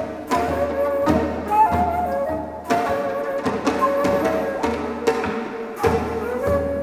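Korean traditional instrumental accompaniment: a daegeum (bamboo flute) plays a slow, wavering melody over the ensemble, with a few janggu and buk drum strokes.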